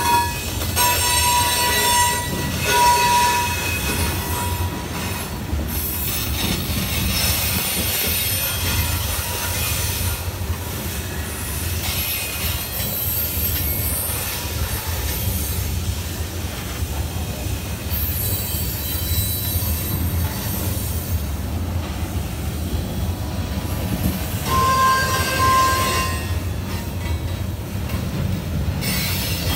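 Covered hopper cars of a freight train rolling past on a curve, a steady low rumble of wheels on rail with hissing flange noise. Short high wheel squeals sound at the start and again near the end.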